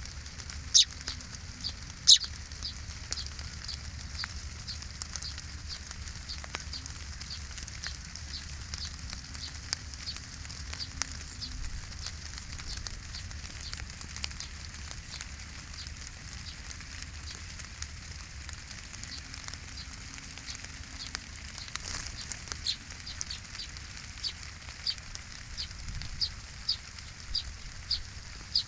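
House sparrow chirping, a steady string of short, sharp chirps repeated every fraction of a second, with a couple of louder chirps about one and two seconds in and a quicker run near the end.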